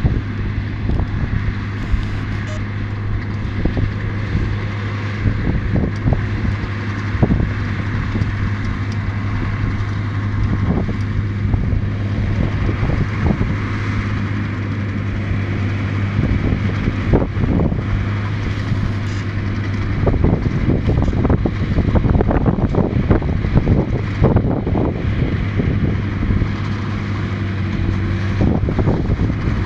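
Tractor engine running at a steady pitch while pulling a Krone round baler through straw stubble, with gusts of wind buffeting the microphone. The sound grows a little louder about two-thirds of the way through.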